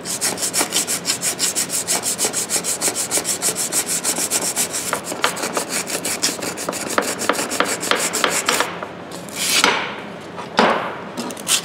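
100-grit sandpaper rubbed by hand in quick, even back-and-forth strokes over the pitted steel of old tongue-and-groove pliers, roughening the surface before bluing. The strokes stop about eight and a half seconds in, and a couple of slower swishes follow.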